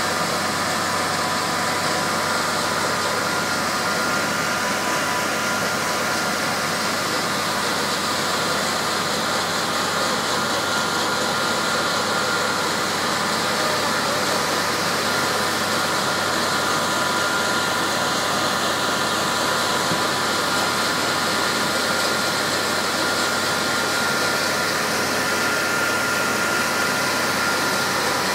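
Fire truck engines driving their water pumps at a steady speed, with the rush of water jets from the roof-mounted monitors. The noise is even and unbroken, with a steady whine running through it.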